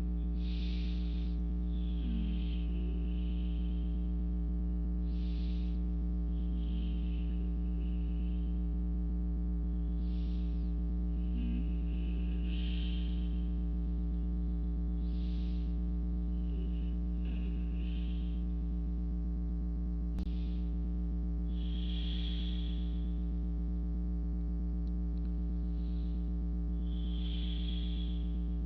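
Slow breathing close to the microphone, one soft breath every two to three seconds, over a steady electrical hum, with a single click about two-thirds of the way through.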